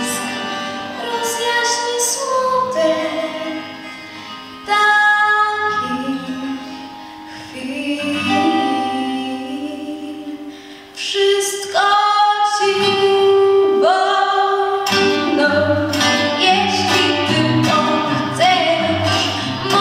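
A girl singing solo into a microphone over a recorded backing track, heard through a PA system, holding one long note about twelve seconds in.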